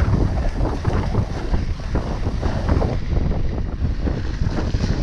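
Wind buffeting the microphone of a camera on a mountain bike running down a dirt trail, with the rumble of the tyres and a dense run of irregular rattles and knocks as the bike jolts over the rough ground.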